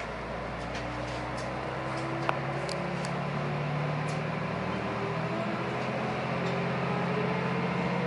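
Diesel railcar engine pulling away from a station, its pitch rising slowly as the train gathers speed, with a few sharp clicks over the steady running.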